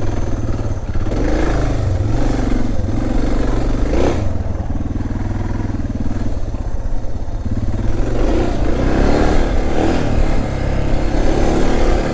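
Suzuki DR650's single-cylinder four-stroke engine running under load on a dirt trail ride, the revs rising and falling as the throttle is worked, with a brief knock about four seconds in.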